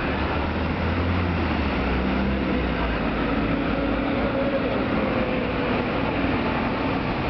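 Busy city street traffic: a steady wash of vehicle engines and tyre noise, with a heavy low engine drone in the first couple of seconds.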